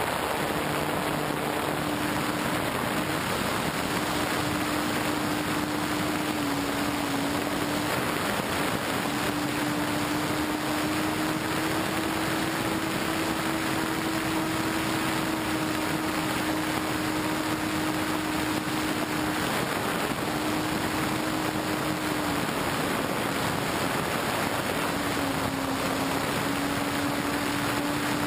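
Onboard sound of a Multiplex Dogfighter RC plane in flight: a steady hum from its electric motor and propeller that holds near one pitch with small dips, over heavy rushing wind noise on the camera's microphone.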